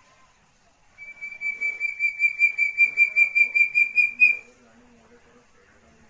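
Young Javan hill partridge (puyuh gonggong) calling: a rapid series of clear whistled notes, about five a second, for some three seconds. The notes grow louder and end on a slightly higher note.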